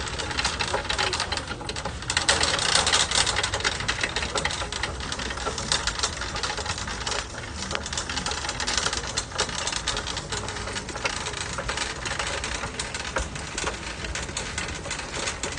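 Shopping cart being pushed across a hard store floor, its wheels and wire-and-plastic basket rattling continuously with a dense run of small clicks.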